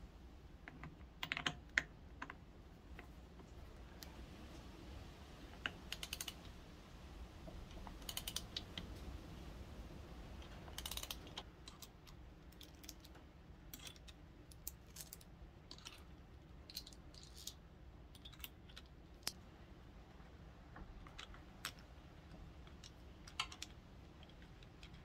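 Scattered light clicks and taps of metal parts as clutch springs, the pressure plate and a socket tool are handled and fitted on a pit bike's clutch, some in quick little clusters.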